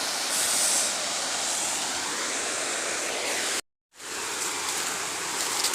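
Steady rushing of the Spread Eagle Falls waterfall, an even hiss with no distinct events, broken by a split-second gap of silence about three and a half seconds in.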